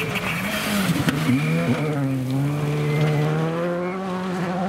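Škoda Fabia Rally2 rally car's turbocharged four-cylinder engine at full load on gravel, with gravel hissing under the tyres. Its engine note falls and wavers between about one and two seconds in, then holds high and climbs slowly.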